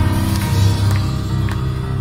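Live blues band playing loud, amplified music on keyboard, electric guitar and drums, with a heavy bass and regular drum and cymbal hits.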